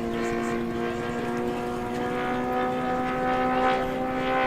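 Large RC model Hawker Typhoon's OS GF40 four-stroke petrol engine running steadily with a propeller, its pitch creeping slightly higher.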